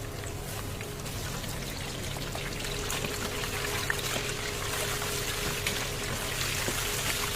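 Chicken deep-frying in hot oil: a steady sizzle with small crackles that grows a little louder, over a faint steady hum.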